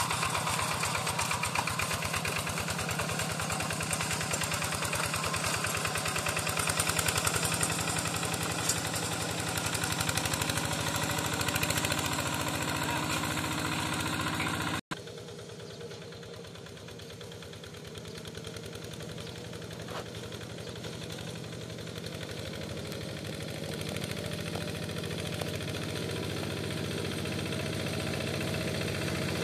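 Yanmar two-wheel hand tractor's single-cylinder diesel engine running steadily while tilling a flooded paddy with cage wheels. It is loud at first; after a sudden break about halfway it is fainter, then grows louder again toward the end as the tractor comes nearer.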